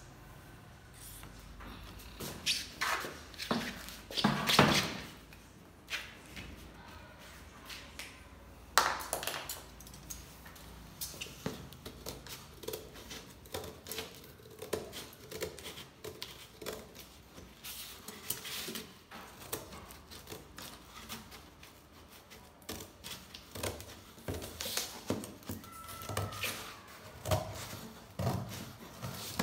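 Handling noise from a large, thin clear plastic sheet being flexed, with crinkling and knocks, loudest early on and again about nine seconds in. Near the end, scissors snip and rasp through corrugated cardboard.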